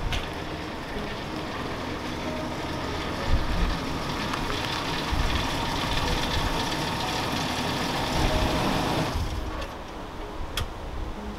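Ford Explorer SUV driving up a wet driveway and stopping, its engine and tyres on the damp pavement growing louder as it comes close. The sound drops away suddenly about nine seconds in, and a single sharp click follows near the end.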